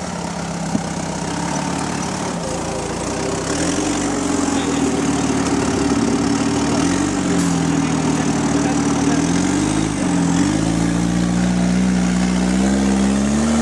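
Tube-frame off-road rock buggy's engine revving under load as it climbs a steep dirt slope, the revs rising, dipping and recovering several times and climbing higher near the end.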